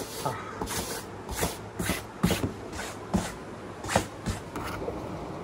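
Bristle brush swept in quick, irregular strokes, about two a second, brushing up shed golden retriever hair.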